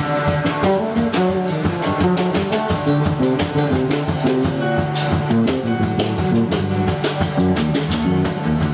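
Band music with guitar and drum kit, a dense mix of held notes over a steady beat.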